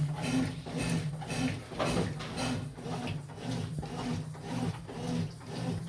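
Consul washing machine in its rinse cycle making a strange noise: a low motor hum with a rasping, groaning pulse repeating about twice a second.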